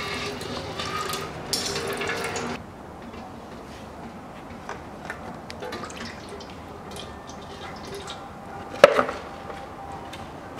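Background music cuts off about two and a half seconds in. After it, engine oil drips and trickles from the oil filter mount of a Kia Rio 1.4 as the old filter comes off, with a few small handling clicks and one sharp knock about nine seconds in.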